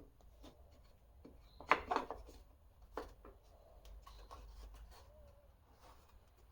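Pieces of wood being handled and set onto a table saw sled: light knocks, clicks and rubbing, with the loudest cluster of knocks about two seconds in and another knock about a second later.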